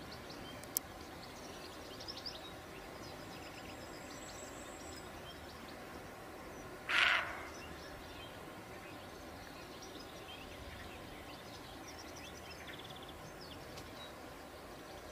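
A roe deer gives one short, hoarse bark about seven seconds in, the kind of alarm call a roe gives when it has spotted something. Behind it is a steady open-air hush with faint scattered bird chirps.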